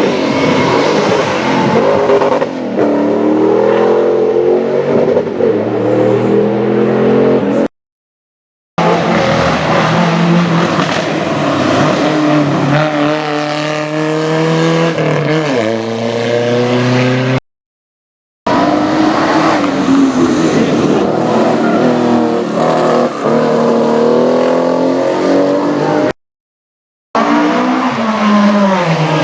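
Classic rally cars at full throttle, one after another, their engines revving up and dropping back with each gear change as they pass. The sound cuts to silence three times, about 8, 18 and 27 seconds in, between one car's clip and the next.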